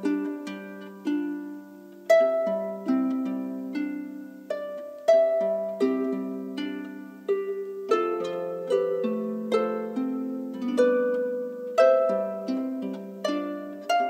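Slow instrumental music of plucked notes that ring out and fade, a new note or chord about every second, over held low notes.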